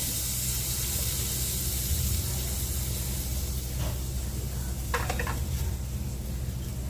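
Cashews and raisins sizzling in ghee in a frying pan just after the heat is switched off, the sizzle slowly fading.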